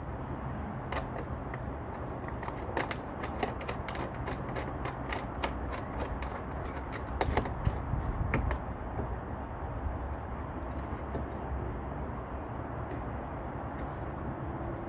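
Hand ratchet wrench clicking in quick runs while a bolt is turned, several clicks a second, stopping about eight and a half seconds in; a steady low hum of background noise runs underneath.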